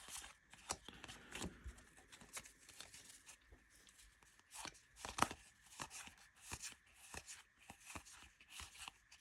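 Baseball trading cards being handled and sorted: a run of soft, irregular taps and slides as cards are flicked through and laid down on piles, the loudest about five seconds in.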